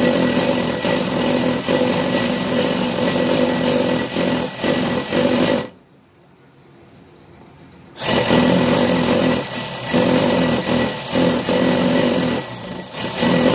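Electric sewing machine running fast while stitching: a steady motor hum with the rapid clatter of the needle. It stops for about two seconds in the middle as the fabric is turned, then starts up again, pausing briefly a few times near the end.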